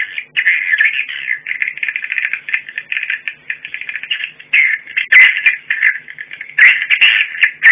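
Swiftlet lure call played through rooftop horn speakers: a continuous, rapid, buzzy twittering chatter, with a few sharper clicks about five seconds in, again near seven and at the end.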